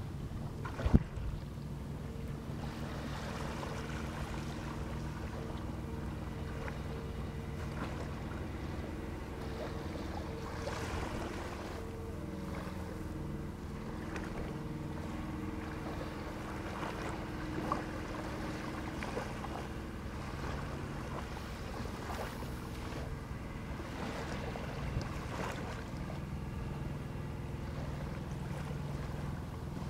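A boat engine running steadily at low speed, a low hum throughout, with one sharp knock about a second in.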